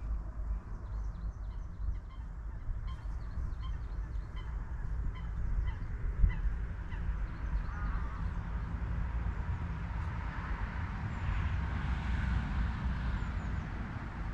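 Lakeside outdoor ambience: a steady low rumble of distant road traffic under many short, high bird chirps in the first half. A broad rushing sound swells over the last few seconds.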